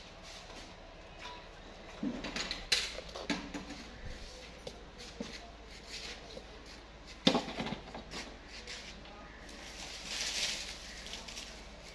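Steel bowls and a steel cooking pot being handled, giving scattered knocks and clinks with one sharp clank a little past the middle. Near the end comes a brief rustle as handfuls of moringa buds drop into the pot.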